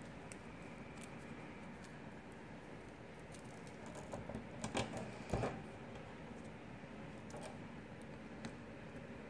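Braided power-supply cables being handled and PCIe power connectors pushed into the sockets of an Antminer S9's hashboards: faint rustling with scattered small plastic clicks, the loudest a few clicks and knocks about five seconds in.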